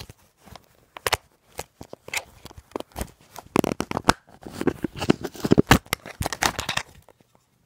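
Plastic phone case being prised off the phone that is recording, heard as a run of sharp clicks, snaps and rubbing scrapes right against the phone's microphone, thickest in the second half and stopping shortly before the end.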